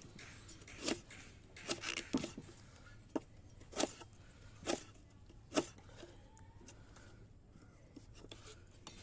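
Handmade cleaver blade making a series of short, sharp cutting strokes, about seven of them, irregularly spaced, then stopping about six seconds in.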